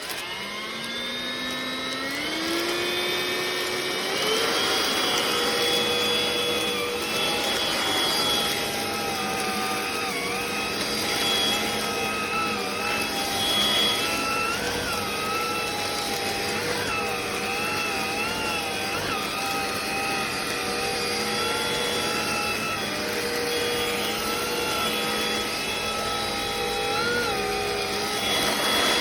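Craftsman V20 cordless stick vacuum's motor spinning up with a rising whine over the first few seconds, then running steadily, its pitch wavering now and then.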